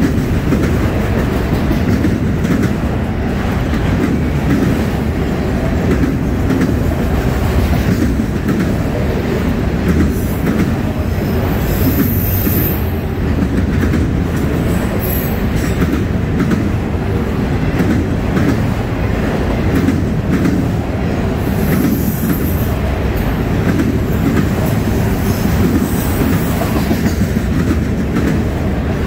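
Freight train of autorack cars rolling past close by: a steady rumble and clatter of steel wheels on the rails. Thin, high wheel squeals come in about twelve seconds in and again twice after twenty seconds.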